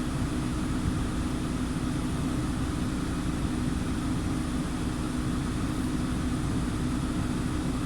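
Car engine idling steadily with a low hum, the air-conditioning compressor's control valve shut off in Econ mode so the compressor is not pumping and the high-side pressure is falling.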